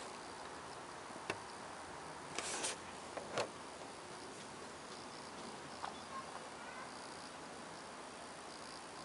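Quiet steady hiss with a few scattered clicks and short rustles from the handheld camera being moved and brushed against the van's bodywork.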